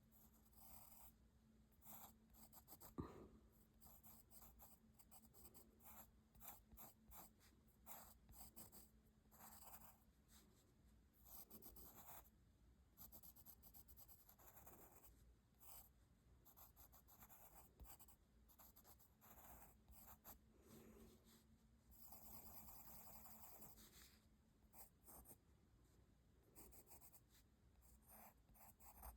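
Faint graphite pencil scratching on paper in many short, irregular strokes, with a longer unbroken stretch of shading near the end. A single sharp tap about three seconds in.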